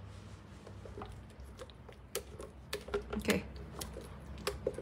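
Silicone spatula scraping thick, creamy dressing in a clear plastic blender jug, with scattered light clicks and knocks as the jug is handled. The blender is not running.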